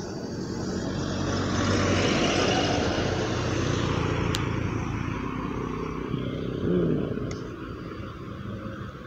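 A road vehicle passing by, its engine and tyre noise swelling over the first two or three seconds and then slowly fading away.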